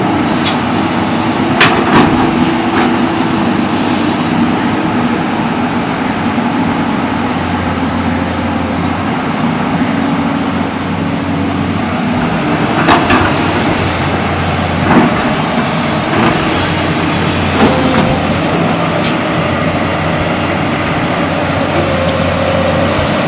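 JCB excavator's diesel engine running steadily while digging, with occasional sharp knocks.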